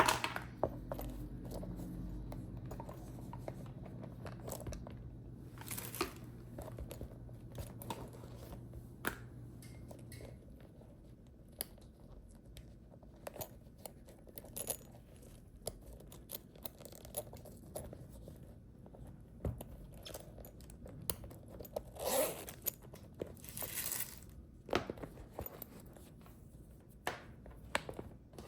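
Close-up handling of a leather shoulder bag: scattered small clicks, scrapes and crinkling rustles, with two louder rustles near the end.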